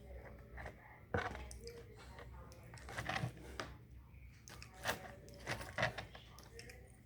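Person eating close to the microphone: chewing with several sharp crunches.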